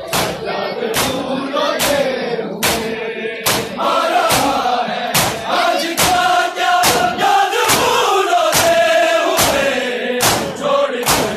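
Large crowd of Shia mourners chanting a Muharram lament in unison, over a steady beat of sharp slaps just over one a second: rhythmic chest-beating (matam).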